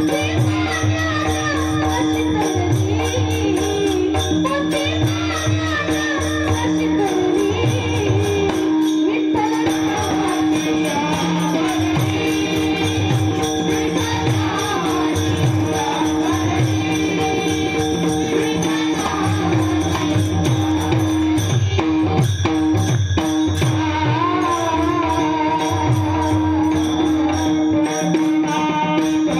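Marathi devotional bhajan music: mridang drum strokes and jingling metal percussion keep a steady rhythm under a held drone note and a wavering melody line.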